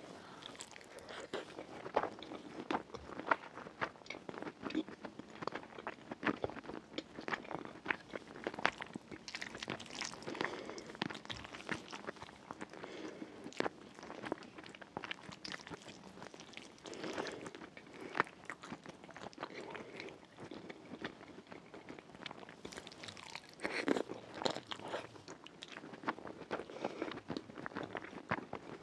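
Close-miked chewing and mouth sounds of a person eating rfissa, shredded flatbread with chicken and lentils, by hand: a dense, irregular run of small clicks and soft crunches, a little louder just before the end.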